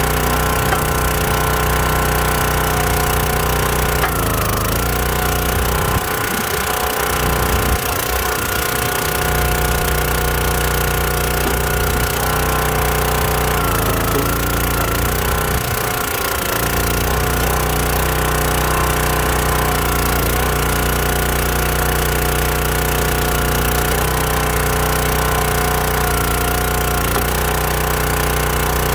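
Small gas engine of a Countyline 25-ton log splitter running steadily to drive the hydraulic pump, its note dipping and wavering a few times as the ram is worked through logs.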